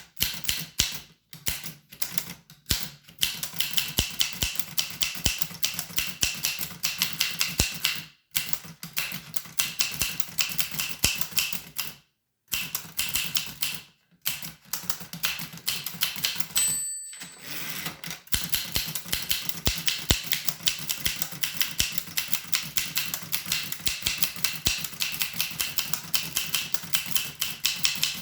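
1895 Williams No. 1 typewriter being typed on: rapid runs of sharp key and typebar clicks, broken by several short pauses. A brief ringing tone sounds about two-thirds of the way through.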